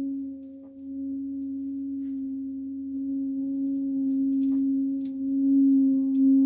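A trombone holding one long, steady note, played back from a vinyl record on a Rega RP8 turntable with an Ortofon 2M Bronze cartridge. The pitch does not waver, a sign of stable speed with no audible wow or flutter.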